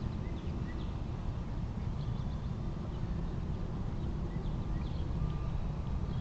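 Wind rumbling on the microphone, with a few faint, short, high chirps from small birds.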